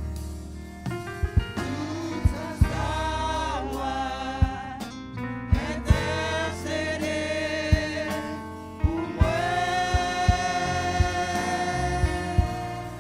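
Gospel worship song: slow singing with a band, low bass notes and sharp drum hits about once a second. A long note is held near the end.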